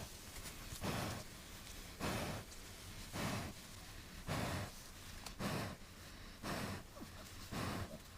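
Farrowing sow breathing heavily and rhythmically, seven loud breaths about one a second, as she labours.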